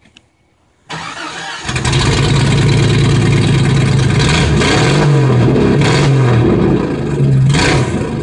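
Jeep Cherokee XJ engine starting about a second in through a straight-piped exhaust with nothing on it, then running loud with several short revs in the second half.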